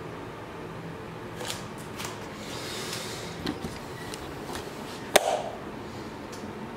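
Handling noise as the camera is moved around: some rustling and a few light taps, with one sharp click about five seconds in, over a faint steady room hum.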